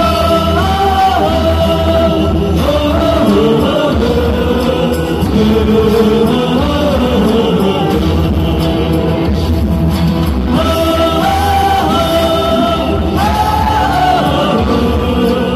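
Loud Vietnamese song with a sung, gliding melody over a steady bass line, accompanying a stage dance.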